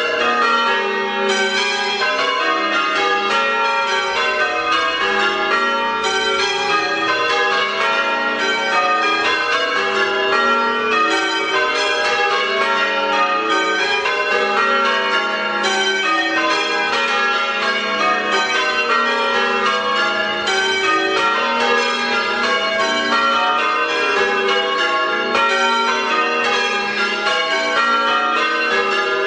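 Church bells change ringing a Major method on eight bells: an unbroken, even run of strokes, the bells striking one after another in a constantly shifting order.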